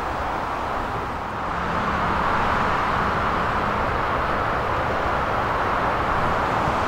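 Steady rolling and running noise of a historic electric tram approaching along its track, blended with a traffic hum, growing slightly louder about two seconds in.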